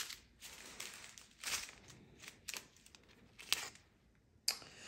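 Small plastic bags of diamond painting drills being handled, rustling and crinkling in several short bursts.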